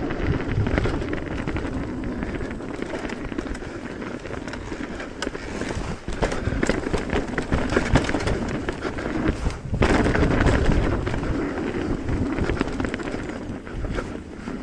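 Mountain bike descending a dirt trail: tyres rolling and crunching over the ground with frequent small clattering knocks from the bike, and wind rushing over the microphone.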